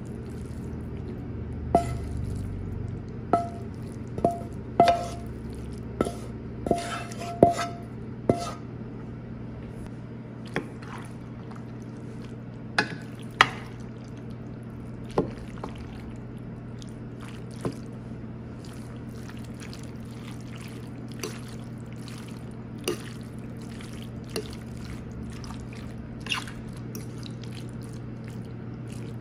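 A wooden spatula scrapes and knocks against a skillet and a ceramic baking dish as a ground-meat mixture is scooped out and stirred into pasta. The sharp knocks come thick in the first eight seconds, several with a brief ring, then grow sparser over a steady low hum.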